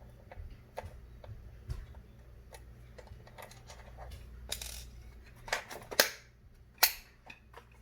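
Light plastic clicks and taps from handling a toy RC car's battery compartment and battery pack, with a brief scrape about four and a half seconds in and two sharper clicks around six and seven seconds in.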